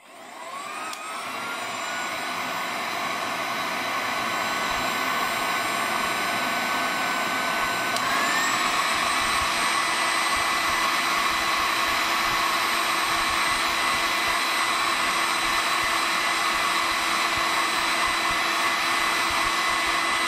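Handheld heat gun blowing hot air, a steady rush with a motor whine that rises as it spins up at the start and steps up in pitch about eight seconds in. It is melting the last stubborn solder joint to free an IC socket from the circuit board.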